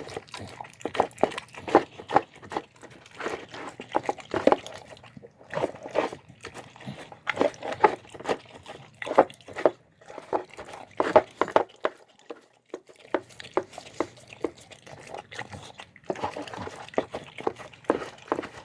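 A dog eating a soft, wet meal of chicken and rice: rapid chewing and smacking, with a quiet break of a few seconds past the middle.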